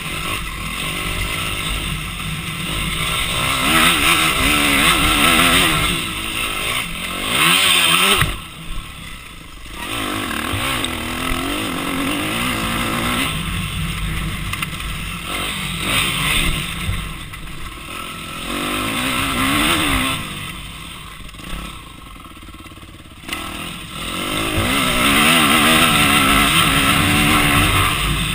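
Off-road racing engine heard from onboard, revved hard and backed off over and over as it is ridden around a dirt motocross track. The engine note and loudness fall away twice, about eight seconds in and again around twenty-one seconds in, as the throttle is shut, then pick up again.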